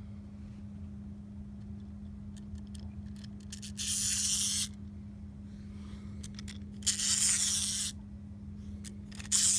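Clockwork wind-up toy and its handling: three short bursts of hissy scraping, each about a second long, with scattered light clicks between them, over a steady low hum. The toy's spring mechanism is not yet running properly.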